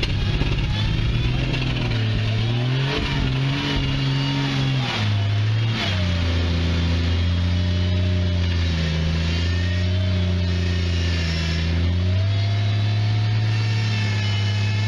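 Off-road vehicle engine running under load, its revs wavering at first, settling lower about five seconds in, then rising again near the end.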